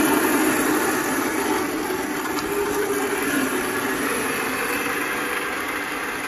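1/10-scale RC crawler's electric motor and drivetrain running, a steady mechanical noise that slowly fades.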